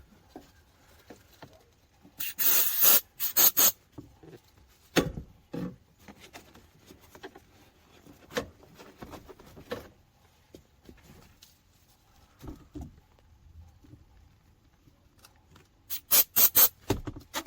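Silicone lubricant aerosol spraying in two short hisses about two seconds in. Scattered knocks and rubbing follow, and a quick run of short hissing strokes comes near the end.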